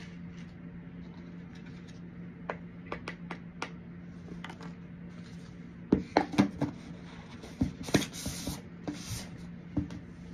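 A small spoon and bowl being handled: scattered light clicks and taps, busiest about six to seven seconds in, with brief rustling around eight to nine seconds, over a steady low hum.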